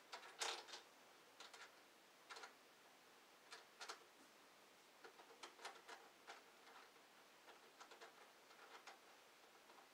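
Faint, irregular small clicks and taps of plastic parts and little screws being fitted into a hollow plastic mini skate ramp, coming in short clusters.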